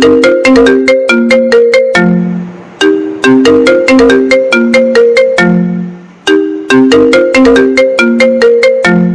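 Background music: a short melody of quick pitched notes over a low bass note, looping about every three and a half seconds, like a phone ringtone.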